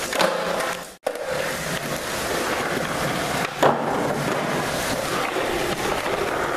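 Skateboard wheels rolling on a concrete floor, with a sharp clack of the board right at the start and a louder clack about three and a half seconds in as the skater jumps the board onto a wooden pallet; the sound cuts out briefly about a second in.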